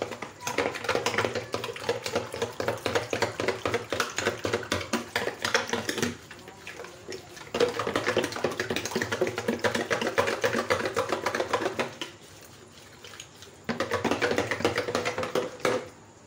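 Hand wire whisk beating runny chocolate cake batter in a bowl: fast wet, clicking strokes in three bouts, broken by short pauses about six and twelve seconds in. She is beating the batter until it turns fluffy.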